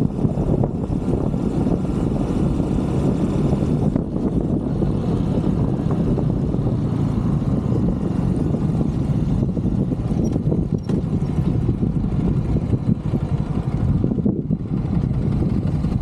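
A 125cc Brixton motorcycle being ridden: the engine running steadily under a dense rush of wind noise on the microphone.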